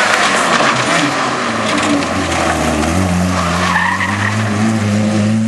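Opel Corsa rally car driven hard, engine running loud with tyres squealing and skidding. The engine note climbs steadily over the last couple of seconds.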